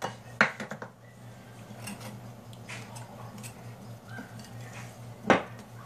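Wire balloon whisk stirring flour into thick brownie batter in a glass bowl, with scattered light clinks of the whisk against the glass and one louder knock about five seconds in.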